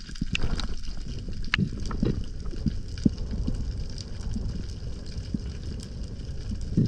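Underwater sound through a camera's housing: a steady low rush of water with scattered short clicks and knocks.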